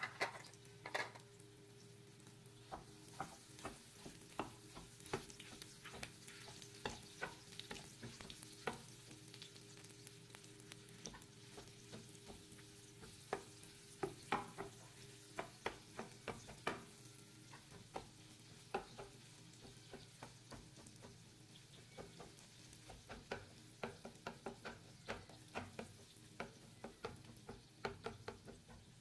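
Chorizo frying in oil in a nonstick pan, sizzling faintly, while a spatula chops and stirs it. Many sharp taps and scrapes of the spatula against the pan come throughout.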